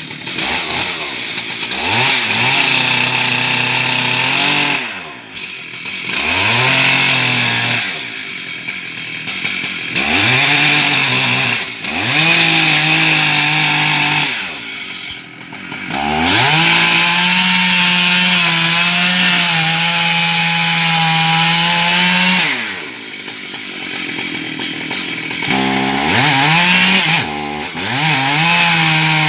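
Stihl MS 880 two-stroke chainsaw cutting wood in repeated bursts of full throttle. The revs climb steeply, hold for a few seconds, then fall back toward idle, about six times, with the longest cut held for about six seconds midway.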